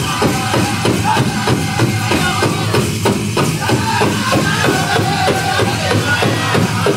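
Powwow drum group playing a chicken dance contest song: several drummers strike a large drum in unison at a fast steady beat while the singers sing in high voices over it.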